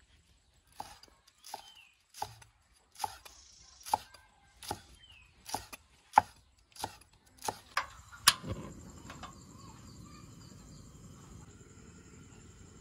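Cleaver chopping chillies and herbs on a wooden chopping board: about a dozen separate chops, roughly one every 0.7 seconds, the last and loudest about 8 seconds in. After that a steady low rushing noise takes over.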